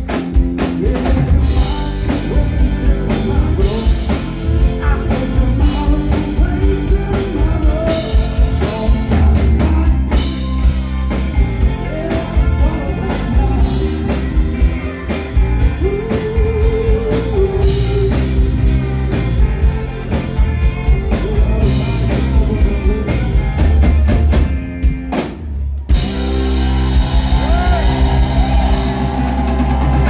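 Live band playing with a lead singer over drum kit, electric guitar, bass guitar and fiddle. The band drops out briefly about five seconds before the end, then comes back in.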